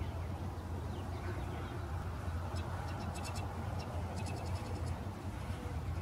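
Small songbirds calling: two quick runs of short, high ticking notes about halfway through, over a steady low background rumble.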